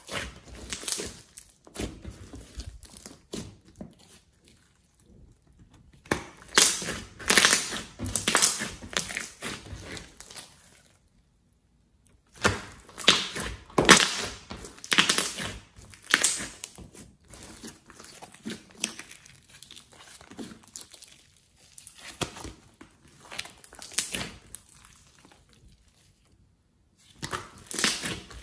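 Hands kneading, folding and squeezing a thick, glossy slime, giving runs of wet crackling and popping. The runs are broken by a few short pauses.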